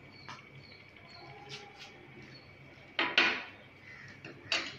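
A small bowl and spoon being handled and set down on a glass tabletop: a few light clinks, a louder knock about three seconds in and another near the end.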